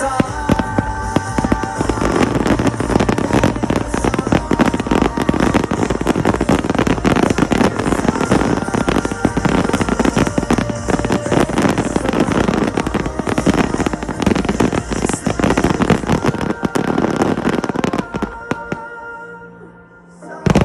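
Fireworks display barrage: a dense, rapid stream of bangs and crackles over music, thinning out near the end, with one last sharp bang.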